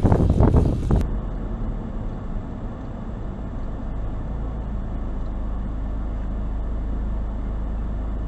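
Wind buffeting a bicycle-mounted camera's microphone for about a second, then an abrupt switch to the steady low rumble of a car driving, heard from inside the cabin.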